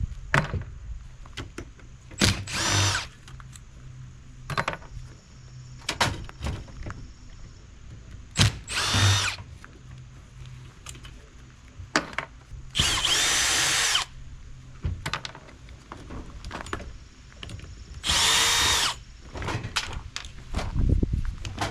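Cordless drill running in four short bursts of about a second each, with a whining pitch, backing out fasteners on an old dishwasher. Short knocks and clicks of metal parts come between the bursts.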